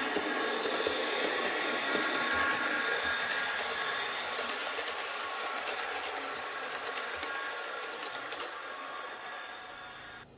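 HO-scale model oil tank train running on the layout: the locomotive's small electric motor whirs with a steady high whine while the wheels click rapidly over the track, fading as the train moves away and cutting off sharply near the end.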